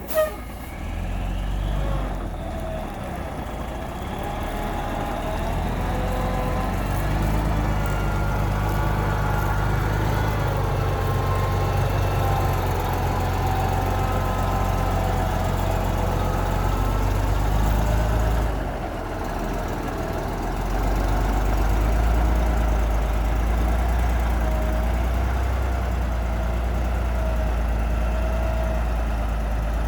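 A vehicle engine running under load on a steep hill, with a wavering whine above it. About 19 seconds in the engine drops off briefly, then comes back louder and steadier.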